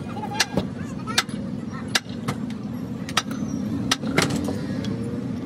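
Hand hammer striking a steel bracket resting on a wooden block, about seven sharp, unevenly spaced blows, over a steady low hum.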